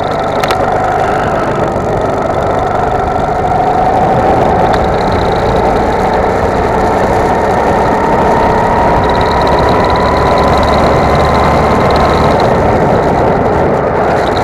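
Go-kart engine under full throttle, its pitch climbing steadily along a straight, then dropping near the end as the kart lifts off for a corner.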